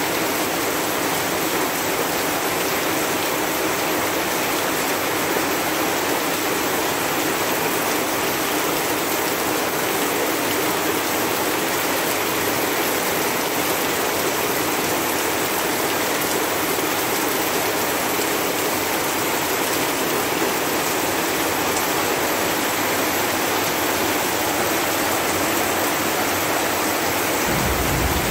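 Steady heavy rain, an even hiss of falling water, with a low rumble coming in near the end.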